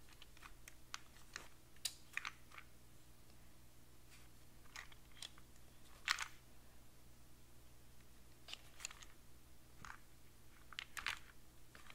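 Wooden puzzle box being handled and turned over in the hands: scattered faint clicks, taps and scrapes of its wooden parts, the loudest about two, six, nine and eleven seconds in.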